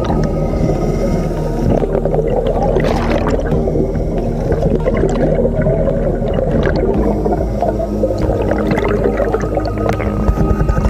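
Underwater bubbling and gurgling of a scuba dive picked up through the camera housing, with louder bubbly surges about three seconds in and again near the end, over a steady low hum.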